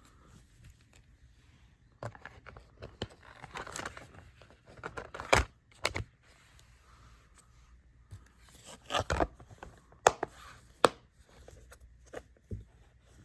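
DVD box set packaging being handled: bouts of rustling and scraping with several sharp clicks, after a quiet first two seconds.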